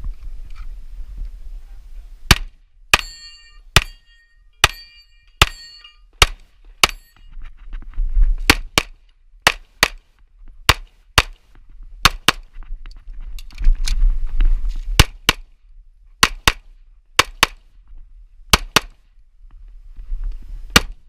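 Handgun shots fired through a practical-shooting course of fire, about two dozen cracks in quick pairs and singles with short pauses between strings. The first several shots are each followed by a short ringing tone.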